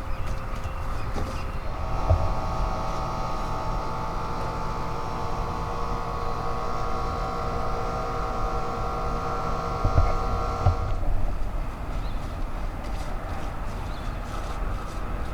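Outdoor wind rumble on the microphone, with a steady pitched mechanical drone that comes in about two seconds in and cuts off abruptly about eleven seconds in.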